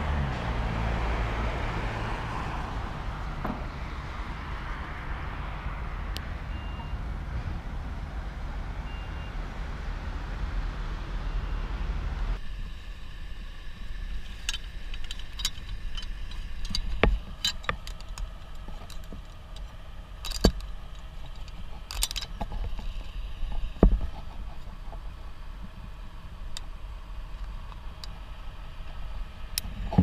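Road traffic running by as a steady rumble, then, after an abrupt change a little under halfway through, scattered sharp clicks and clinks of climbing hardware being handled as rope and kit are sorted at the foot of the tree.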